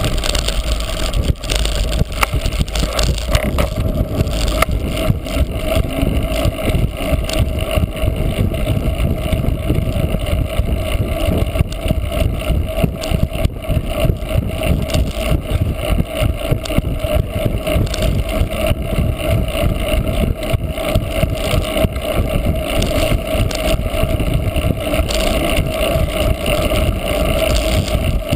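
Cyclocross bike being raced over rough ground, with constant rattling and knocking and a steady rush of wind on the microphone.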